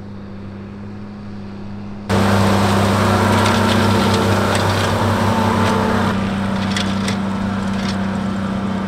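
Fendt 718 tractor's six-cylinder diesel running steadily under load as it pulls a forage wagon picking up grass. Fainter at first, then suddenly close and loud about two seconds in, with a hiss and scattered clicks over the engine hum.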